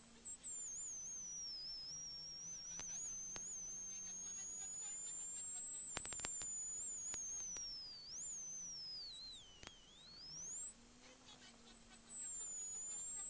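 Peugeot 106 XSI rally car's four-cylinder engine heard from inside the cockpit, pulling hard with a high whine that follows engine speed. The pitch sags about eight seconds in, drops further as the car slows, then climbs again about ten seconds in, with a few sharp knocks along the way.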